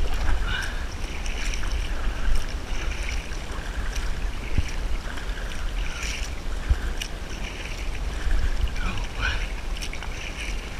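Paddle strokes in water from a small paddled boat, with irregular splashes and a low wind rumble on the microphone.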